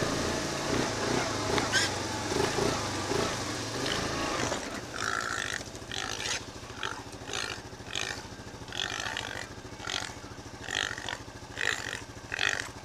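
Feral pig squealing and grunting in repeated short bursts as a dog catches and holds it, starting about five seconds in. A low engine hum runs under the first few seconds.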